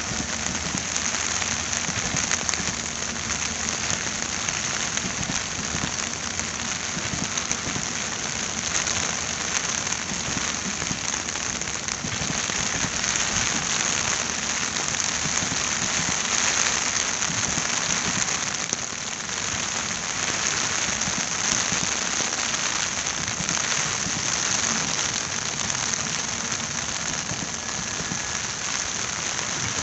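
Heavy rain falling steadily, a dense hiss, with the low rolling of LHB passenger coaches passing on the track beneath it.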